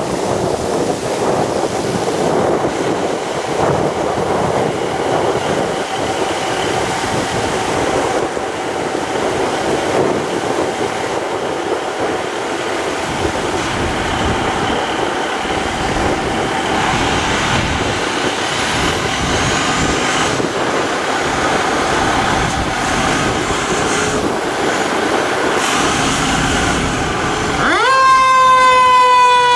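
Steady engine and street rumble as a fire ladder truck runs. About two seconds before the end, the truck's electronic siren starts, sweeping up in pitch into a loud wail.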